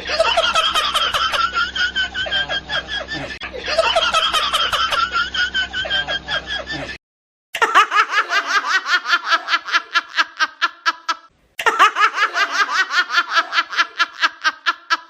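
Laugh sound effects played one after another. First comes a high-pitched laugh lasting about seven seconds, with a faint steady hum under it. After a short pause, a fast, high giggle of about six bursts a second plays twice, with a brief break between the two.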